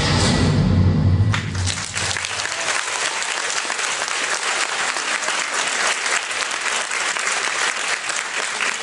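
Music with deep bass cuts off about a second in, and an audience applauds steadily, marking the end of the performance.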